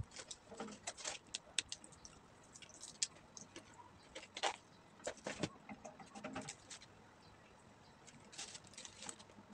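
Crispy breaded fried chicken being torn apart by hand, giving irregular crackles and small clicks, with some paper wrapper rustling.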